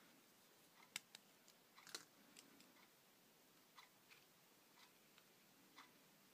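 Faint, scattered clicks and light scratches of a pen tracing around the outline of a plastic doll on paper, the sharpest about one and two seconds in.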